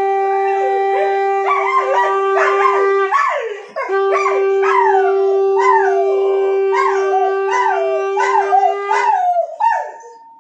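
Electronic outro sound: a steady held tone with a run of short, falling, yelp-like cries over it, stopping abruptly at the end.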